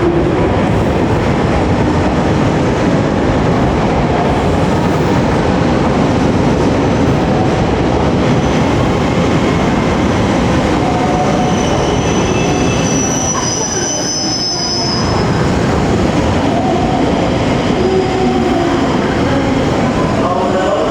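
Electric commuter train running into a station platform: a loud, steady rumble of wheels on rail, with a high wheel squeal partway through.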